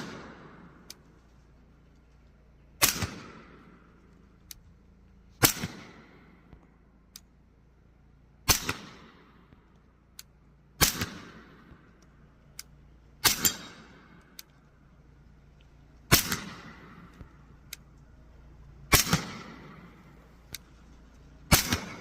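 Eight .45 ACP gunshots fired at a steady, deliberate pace, about one every two and a half to three seconds, each with a short ringing tail. A faint tick follows most shots about a second or so later. The rounds are a light 200-grain reduced-power 'cat sneeze' load being function-tested for reliable cycling.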